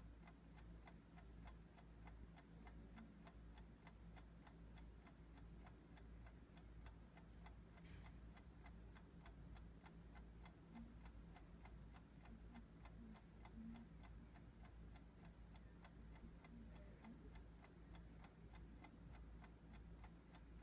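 Faint, steady ticking of a clock or stopwatch, counting off a timed 30-second wait.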